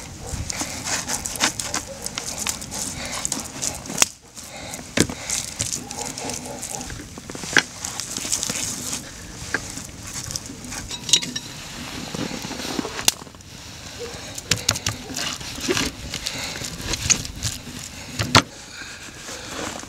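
Hands patting and pressing coated pike fillets on a wooden cutting board: soft rubbing and crackling, with scattered sharp taps of fish and fingers against the board.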